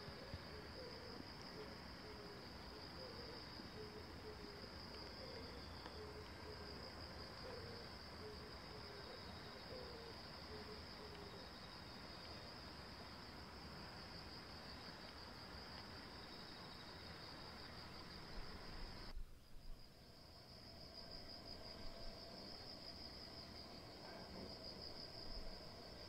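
Insects singing in a steady, high-pitched continuous drone. It drops out briefly about two-thirds of the way through, then resumes. A low, wavering hooting call comes and goes over roughly the first half.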